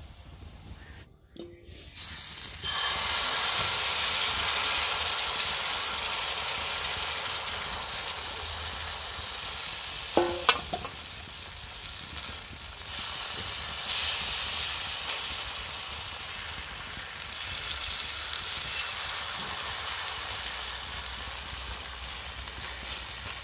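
Batter pancake frying on a hot iron tawa: a steady sizzle that starts about three seconds in and keeps going. About ten seconds in there is one short metallic clink as the flat metal spatula touches the pan.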